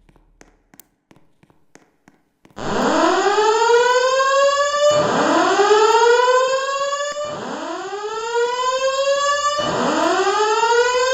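Fire alarm evacuation system sounding its slow-whoop evacuation tone: a loud tone that glides up and levels off, repeating about every two and a half seconds. It starts about two and a half seconds in, after near quiet with a few faint clicks.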